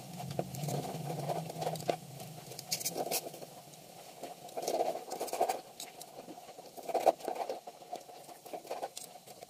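Irregular light clicks and taps of kitchen work, with a low hum that fades out about two seconds in.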